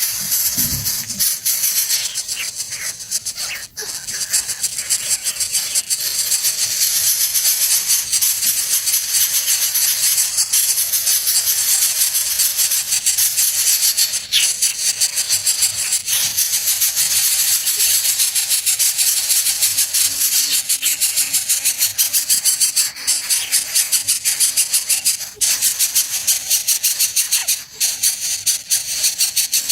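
Steady, high-pitched insect chorus, a rapid rattling buzz like cicadas, with a few sharp clicks.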